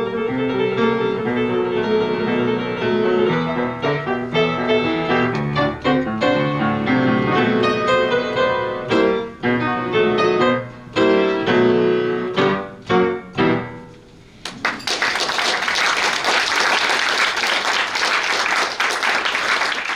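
Solo piano playing a short interlude of chords and melody. It fades out about 14 seconds in, and audience applause follows.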